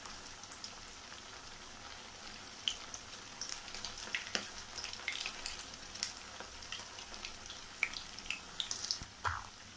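Aval (poha) vadai fritters deep-frying in hot oil: a steady sizzle scattered with many small pops and crackles.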